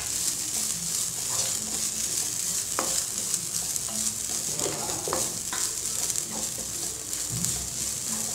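Wooden spatula stirring and scraping grated coconut, shallots, fennel seeds and cinnamon as they dry-roast in a nonstick pan, with short scrapes and knocks over a steady sizzling hiss.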